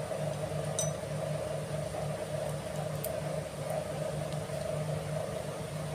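A steady machine hum runs throughout, with a few faint small metallic clicks, about a second and three seconds in, as a small screwdriver works tiny springs into the roller one-way clutch of a motorcycle clutch bell.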